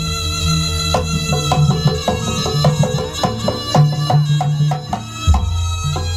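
Traditional jaranan (kuda lumping) ensemble music: drums and struck metal percussion in a quick, even beat over held tones, with a heavy low drum.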